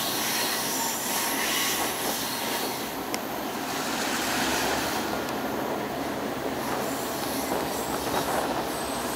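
Passenger train rolling along the track: a steady rumble of wheels on the rails, with thin, faint high-pitched wheel squeal now and then.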